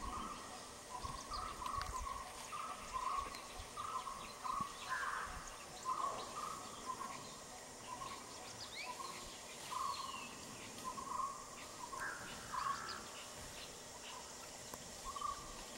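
Forest birdsong: one bird repeats a short call note a little more than once a second, some notes doubled, while other birds chirp briefly at a higher pitch.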